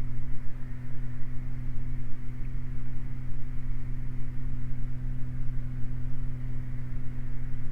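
Steady, unchanging drone of a Beechcraft Baron's twin piston engines and propellers in cruise-climb, heard from inside the cockpit.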